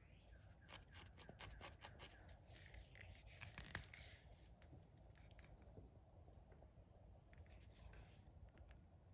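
Near silence with faint handling noise: hands gripping, turning and rubbing a steel hammer and its grip make soft rustles and small clicks, mostly in the first four seconds, with a few more near the end.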